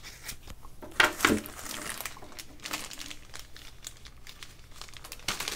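Thin clear plastic bag around a pair of headphones crinkling and rustling as it is handled, with two sharp snaps about a second in.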